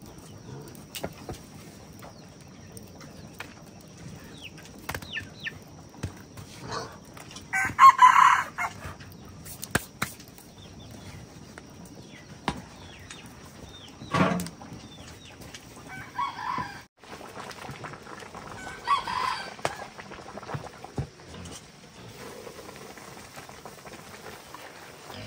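Roosters crowing several times, each crow about a second long, the loudest about eight seconds in.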